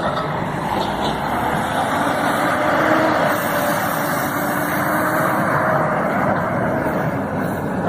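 Heavy diesel earthmoving machinery running steadily under load. A faint whine rises above it in the middle.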